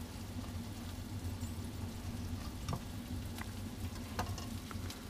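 Onions frying in olive oil in a pan, sizzling steadily. A few light clicks of a knife on a wooden cutting board come in the second half as an avocado is cut. A low steady hum runs underneath.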